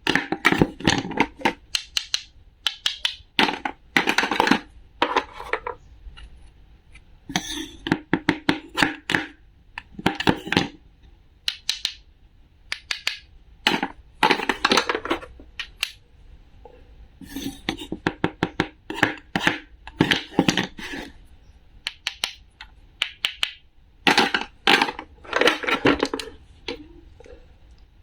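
Rapid clicking and clinking of small hard objects, in clusters a second or two long with short pauses between.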